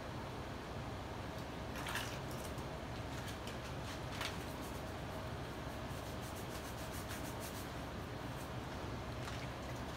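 Faint wet rubbing and squishing of plaster of Paris being smoothed by hand over a sculpture, with a few short stroke sounds, over a steady low hum.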